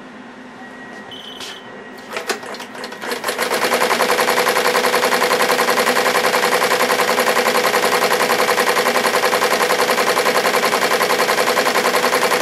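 SWF multi-needle embroidery machine starting up: a short beep and a few clicks, then from about three and a half seconds in the needle bar runs at full speed, a loud, rapid, even chatter of stitches as it embroiders the back of a cap held in a cap frame.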